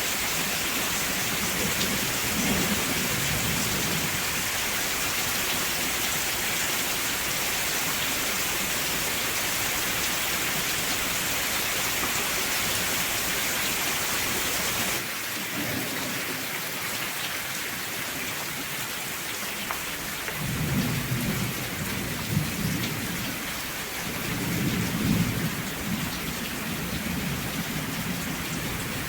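Steady rain with thunder rumbling low several times, most in the second half. About halfway through, the rain's sound changes abruptly.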